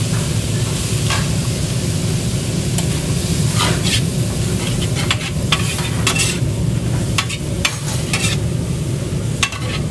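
Spicy pork gopchang with vegetables and glass noodles sizzling on a flat steel griddle while two metal spatulas scrape, flip and toss it, the blades clicking and scraping on the plate more often from partway through. A steady low rumble runs underneath.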